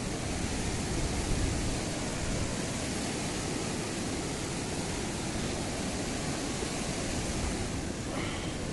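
Steady rush of fast-flowing stream water, an even hiss with a deep low rumble.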